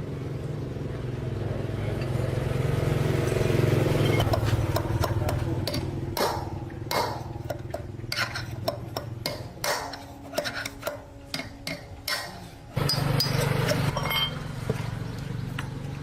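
A small engine running, swelling and fading over the first few seconds and then starting up again suddenly about thirteen seconds in. In between comes a string of sharp metallic clicks and knocks, like tools working on metal.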